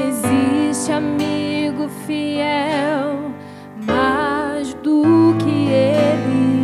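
Instrumental worship music: a melody line with vibrato over sustained chords, with a brief drop in volume about three and a half seconds in.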